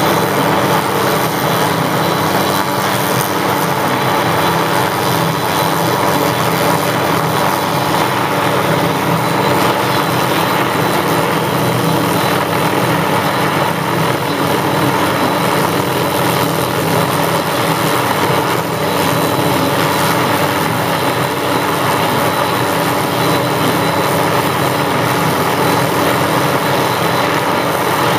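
Hughes 500 helicopter running steadily, its turbine engine and rotor making a constant loud drone while it pulls line through the stringing blocks.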